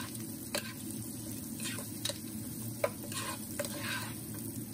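Onion, ginger and garlic frying in oil in a nonstick pot, sizzling steadily, while a plastic spatula stirs them, scraping and tapping against the pot several times.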